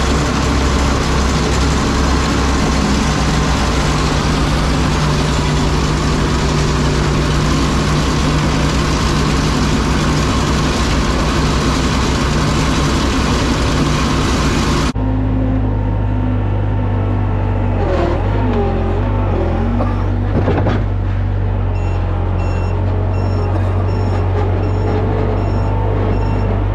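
Farm machinery running steadily and loudly. About halfway through the sound switches abruptly to a different steady machine hum, with a few sliding tones and then a repeating high beeping near the end.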